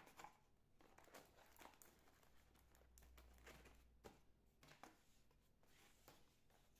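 Faint, scattered taps and papery rustles of kraft-paper lids being pressed down onto kraft-paper food boxes, over near silence.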